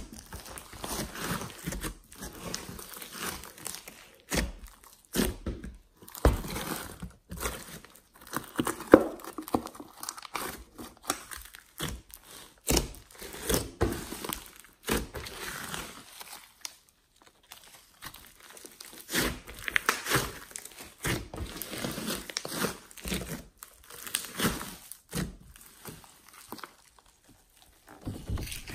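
Hands squishing, stretching and folding a large mass of glossy slime with clay and glitter mixed in: irregular sticky crackles and pops in clusters, with short pauses between handfuls.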